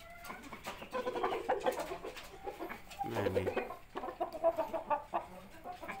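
Aseel rooster clucking, a run of short repeated calls with a louder cluster about halfway through.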